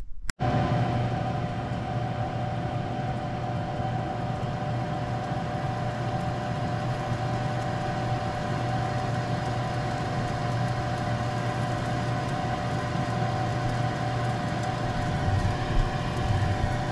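Air fryer 360 countertop oven running on its rotisserie setting: a steady hum with a constant mid-pitched whine from its convection fan and spit motor.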